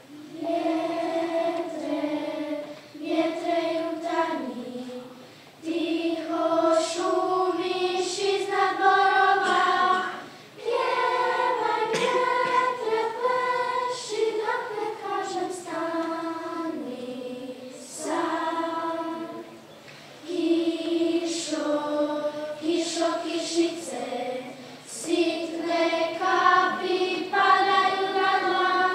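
A primary-school children's choir singing, in phrases with short breaks between them.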